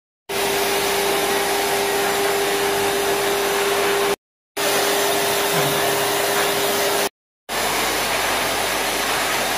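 Hose-and-nozzle pet grooming dryer running steadily, a loud rush of blown air with a steady motor hum, drying a wet dog's coat. The sound cuts out abruptly for a split second twice, and the hum is gone after the second break.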